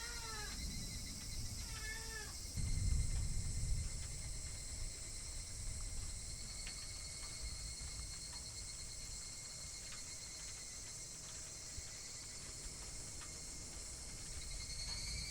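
Kai Ken dog whining: two short, high cries that fall in pitch in the first two seconds, begging for food. A low bump comes about three seconds in, and a steady high insect trill carries on underneath.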